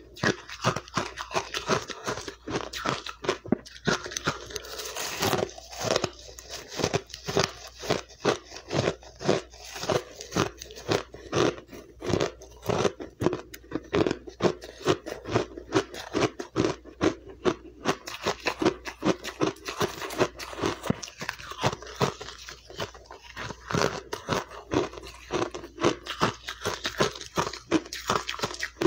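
Refrozen crushed ice being bitten and chewed close to the mouth: a quick, unbroken run of sharp crunches, several a second.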